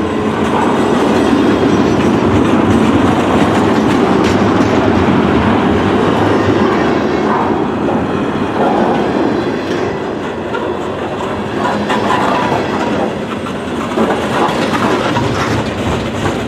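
Freight train cars, mostly tank cars, rolling past close by: a steady, loud rumble of steel wheels running on the rails.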